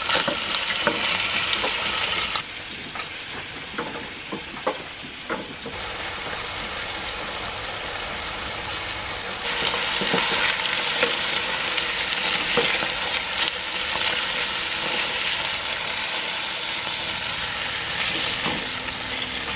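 Steaks sizzling in hot oil in a frying pan, a steady frying hiss, with a few light clicks of a fork against the pan a few seconds in. The sizzle drops quieter about two seconds in and comes back louder around ten seconds in.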